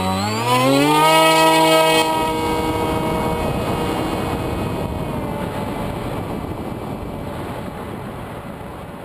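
Electric motor and propeller of an EPP foam FPV plane spooling up in a rising whine and holding high for a moment, then throttled back about two seconds in, leaving a noisy rush of air with a faint motor tone that slowly fades.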